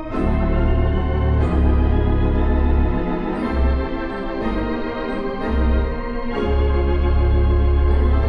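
Mighty Wurlitzer theatre pipe organ playing full sustained chords over heavy pedal bass notes, settling into a long held chord near the end.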